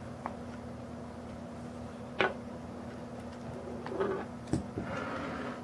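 A few small clicks and taps from laptop screen parts being handled and fitted into the lid frame, the loudest about two seconds in and a short cluster about four seconds in, over a faint steady hum.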